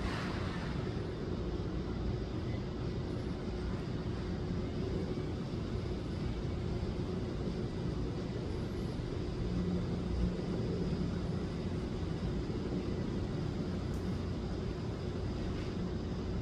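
Steady low outdoor rumble, like distant traffic, with a faint steady hum and no distinct events.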